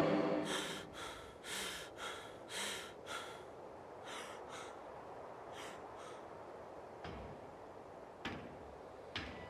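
A man breathing hard in quick, rasping gasps, about six breaths in the first three seconds, then softer breaths. A few faint knocks near the end.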